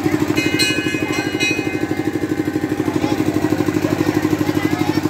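A small engine idling steadily with a fast, even throb. A few high, steady tones sound together briefly, starting about half a second in.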